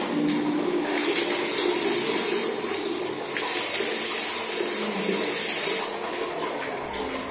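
Water rushing from a wall-mounted lever flush valve into a squat toilet pan as the lever is worked by hand. The rush swells louder twice, briefly about a second in and for longer from about three and a half seconds to near the end.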